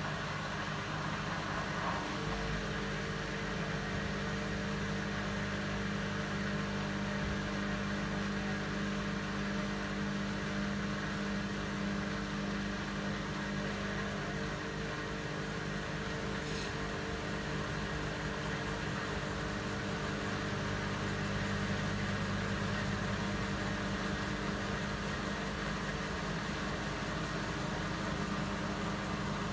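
Bosch WAT28370GB front-loading washing machine on its intermediate spin: the motor and drum run at a steady speed with an even hum, and a higher steady tone joins about two seconds in.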